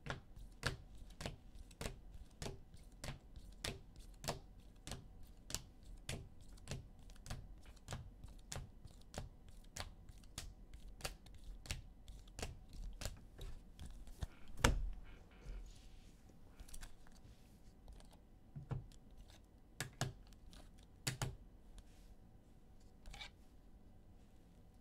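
Hard plastic trading-card holders clicking against one another as cards are taken one at a time off a stack, about two clicks a second at first and thinning out later, with one louder knock a little past halfway.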